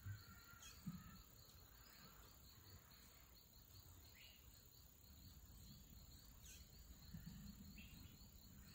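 Near silence, with faint steady insect chirring and a few faint short bird chirps.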